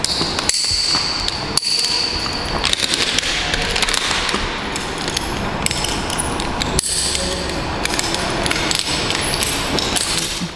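Steel carabiners and rope-access hardware clinking and rattling as rope is stripped out of a descender and a carabiner is unclipped, with many sharp clicks.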